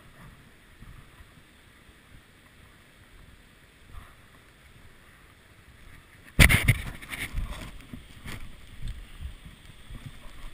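Low wind rumble on the camera microphone, then about six seconds in a sudden run of loud scuffs and knocks, the camera being handled while its holder scrambles over rock.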